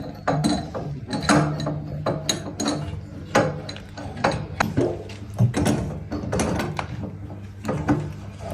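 Irregular mechanical clicking and clacking of metal hand tools, ratchet-like, over a steady low hum.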